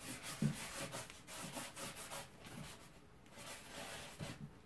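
A paintbrush scrubbing over cardboard in brisk, scratchy strokes, a few a second, with a short lull a little past halfway. The brush is worked nearly dry, dry-brushing paint onto the board until the paint is used up.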